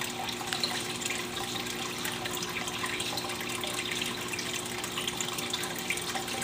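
Aquarium filter water splashing and trickling steadily, full of small bubbly ticks, over a low steady pump hum.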